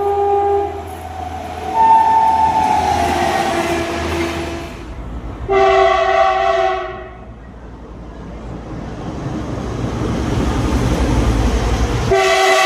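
Indian Railways locomotive horn sounding several blasts, one long blast falling in pitch as the train goes by. Between the blasts a rumble of a passing train builds for several seconds, and a further horn blast comes near the end.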